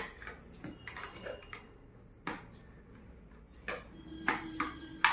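Irregular clicks and knocks of hard plastic toy pieces being handled and set in place, with a few short, faint ringing tones among them.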